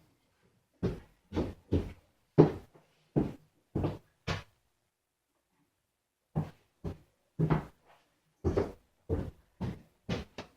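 A run of short, hard knocks and clunks, about a dozen in all with a pause of about two seconds in the middle: tools and metal parts being picked up and set down on a workbench.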